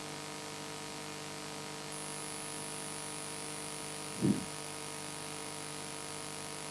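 Steady electrical mains hum with hiss, joined about two seconds in by a faint high whine, and a brief low sound about four seconds in.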